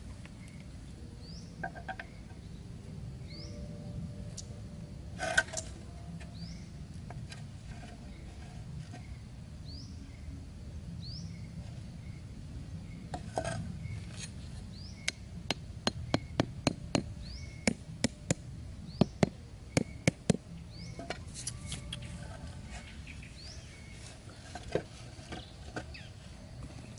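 A hammer tapping small bamboo stakes into dry ground: one sharp knock early on, then a quick run of knocks, two or three a second, a little past the middle. A short, high, rising chirp repeats about every two seconds throughout.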